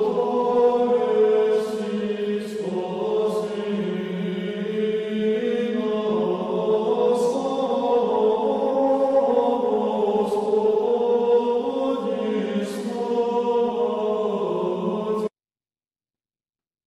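Eastern Orthodox chant: several voices in harmony holding long notes that shift every few seconds, then it cuts off suddenly near the end.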